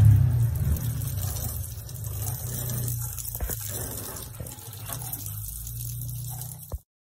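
Water from a garden hose splashing onto a wet motorcycle, over a low steady hum. It cuts off suddenly near the end.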